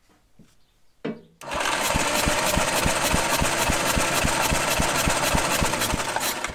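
Starter cranking over the pony (starting) motor of a 1954 Caterpillar No. 6 shovel: a steady whir with even pulses about six a second, starting about a second and a half in after a short knock. The engine turns over without firing, during a test for spark at a plug held against metal.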